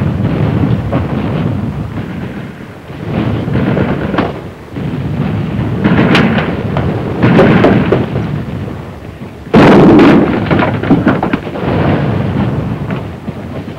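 Battle sound effects: a continuous rumble of explosions and gunfire that swells and fades, with a sudden loud blast about two-thirds of the way through.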